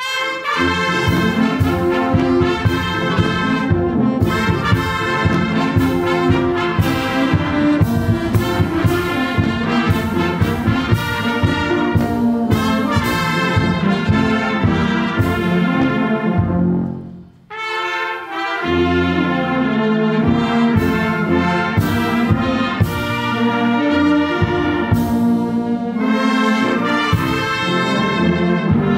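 Church brass band of trumpets, trombones, horns and sousaphone playing a piece together. The music breaks off briefly a little past halfway, then the band comes back in.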